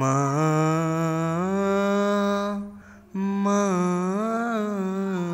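A man singing unaccompanied in Bengali, holding two long notes on the word "Ma" ("mother"), with a short break between them. The first note steps up in pitch partway through; the second dips and rises again.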